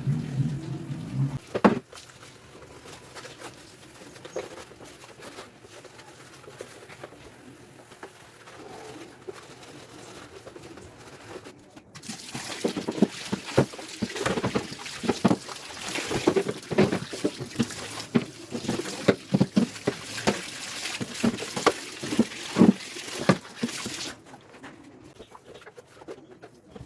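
Hand-cleaning a refrigerator: wet scrubbing and wiping, with a busy run of small clicks, taps and knocks from about halfway through that quietens near the end. A low hum stops with a click near the start.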